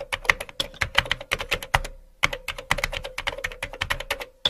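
Rapid, irregular computer-keyboard typing clicks, pausing briefly about two seconds in, over a faint steady hum.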